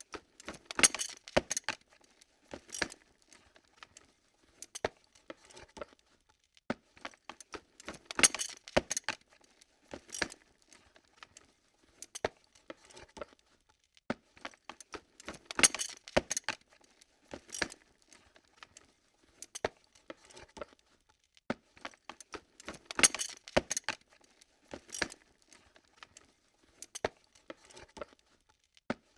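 Lens being moved and handled: a run of small mechanical clicks and rattles, bunched into louder clattering clusters about every seven seconds with fainter ticks in between.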